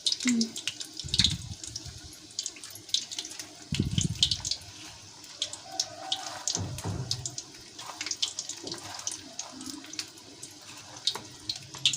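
Crushed cornflake crumbs crackling and rustling as chicken pieces are rolled and pressed in the coating, in scattered sharp crunches, with a few dull thumps from handling.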